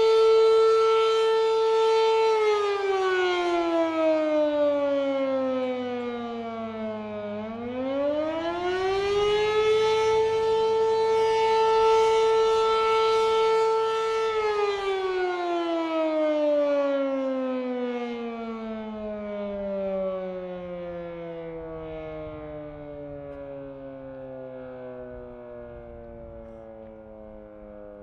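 Fedelcode Model 7 outdoor warning siren sounding its weekly test. It holds a steady wail, winds down about two seconds in, and winds back up to full pitch from about seven seconds in. It holds again, then from about fourteen seconds in it winds down slowly, falling and fading as the rotor coasts toward a stop.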